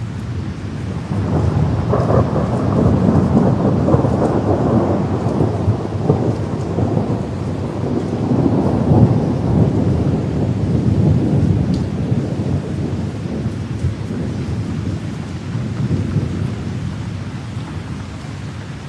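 Steady rain with a long roll of thunder that swells about a second in, rumbles for several seconds and slowly dies away.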